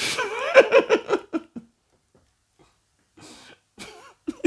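A man's voice: a breathy burst of laughter, a quick run of short pulses lasting about a second and a half. A pause follows, then a few faint vocal sounds near the end.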